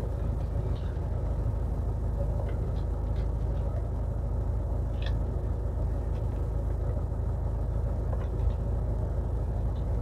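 Cabin noise of a diesel MG Hector on the move: a steady low rumble of engine and road, with a few faint ticks.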